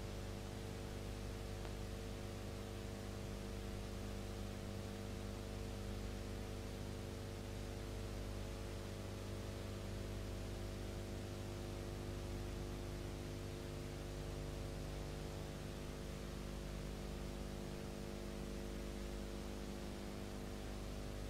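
Steady electrical hum with several steady tones, over a constant hiss. No other sound is present: this is the noise floor of a transfer of a silent film that has no recorded soundtrack.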